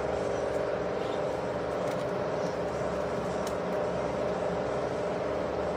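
A steady mechanical drone, engine-like, with a few faint light clicks.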